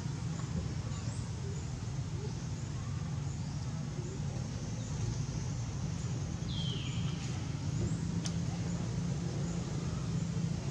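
A steady low rumble underlies a single short, high squeal falling in pitch about six and a half seconds in, typical of a baby macaque. A sharp click comes a little later.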